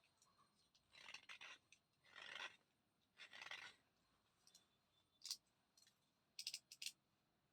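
Thick slate pencil being bitten and chewed close to the microphone: three short crunchy bursts, then a few sharp crisp cracks near the end.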